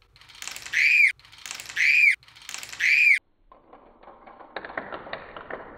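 Three identical high squeaky calls, each about a second long, arching up and then down in pitch and cut off sharply. After them come light clicks and clatter as plastic pieces are set on a balance-tree toy.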